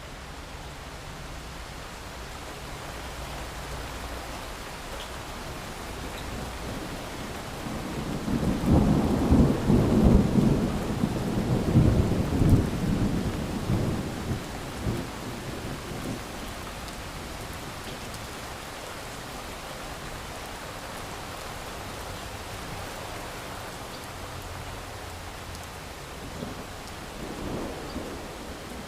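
Steady rain with a long roll of thunder starting about eight seconds in, rumbling loudly for several seconds before dying away; a fainter rumble follows near the end.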